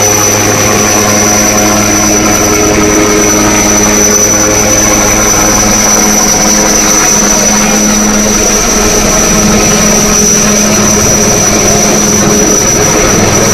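Military helicopter flying close overhead, its rotor and turbine engines running steadily: a deep hum with a high whine above it.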